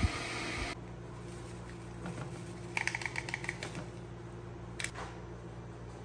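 Steady hiss of a water heater, which stops abruptly under a second in. Then a plastic drink sachet crinkles and rattles as powder is shaken into a ceramic mug, a quick run of clicks about three seconds in, with a single sharp click near five seconds.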